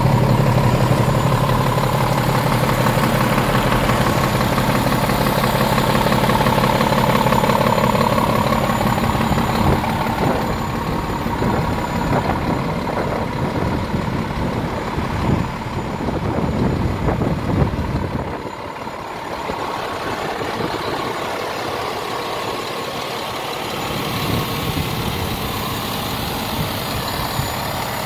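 Scania R490 tractor unit's 13-litre straight-six diesel idling steadily, a low even hum that grows fainter from about eighteen seconds in.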